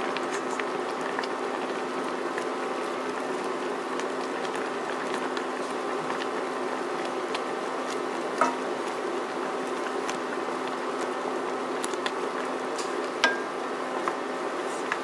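Pork chops simmering in soy sauce in a wok, a steady bubbling over a low hum. A wooden spatula knocks against the pan twice, about eight seconds in and again near the end.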